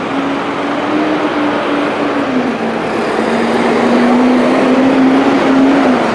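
City street traffic: a motor vehicle passes close by with a steady engine hum that drops slightly in pitch a little over two seconds in and fades near the end, over loud steady road noise that grows louder.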